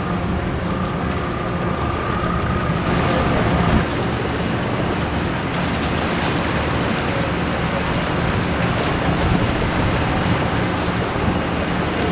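Motor yacht and boat engines running as they pass: a steady low hum under wind buffeting the microphone and water rushing in their wakes. A higher steady whine sits over the hum for the first few seconds, then stops.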